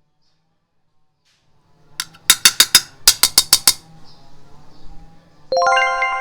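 Two quick runs of sharp, evenly spaced clicks, five or six in each. A bell-like chime of several tones then rings out and slowly fades.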